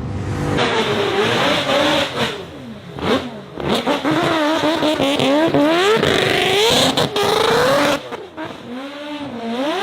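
High-performance engine revving hard, its pitch repeatedly climbing and dropping back, with a few abrupt breaks in the sound.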